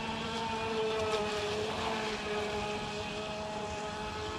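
Proboat StealthWake 23-inch deep-V RC boat's brushed electric motor whining steadily as the boat runs on the water, powered by a 2S LiPo. A brief rush of noise rises over the whine about a second and a half in.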